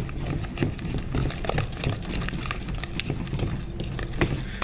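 Glue and shaving-cream slime mixture being stirred and worked by hand in a plastic bowl: irregular soft clicks and taps, over a low steady hum.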